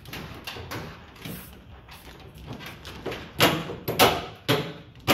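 Hands working a Bimini top's pole-mount hardware: a run of sharp clacks and rustles from the metal fittings and their plastic hardware bag, soft at first, then about four loud ones in the last two seconds.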